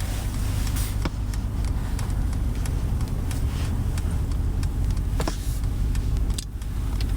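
Steady low rumble of road and engine noise heard inside the cabin of a 2020 Mercedes-Benz GLS 580 on the move, with a few faint scattered clicks.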